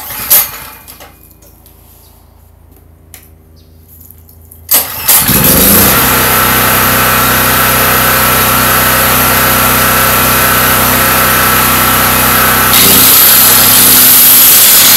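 A quiet steady hum of the Predator 4000 generator running, then, about five seconds in, a 4½-inch angle grinder switched on. It spins up and runs loud and steady with a high whine, and it grows louder and brighter near the end.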